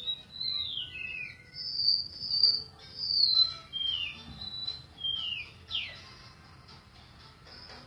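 Golden-bellied gerygone (remetuk laut) singing: a run of high, thin whistled notes, most sliding down in pitch, growing quieter after about six seconds.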